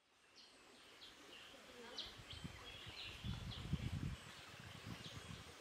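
Birds chirping repeatedly in forest, with short sweeping calls over a steady outdoor hiss, fading up from silence. About three seconds in there is a louder low rumble with thuds, lasting about a second.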